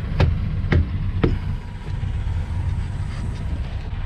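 Semi truck idling with a steady low hum, with three sharp knocks about half a second apart in the first second and a half.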